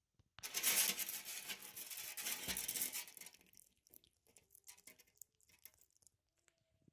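Loud rustling and scraping right at the microphone for about three seconds as a bearded dragon pushes against the camera. Light scattered clicks and taps follow.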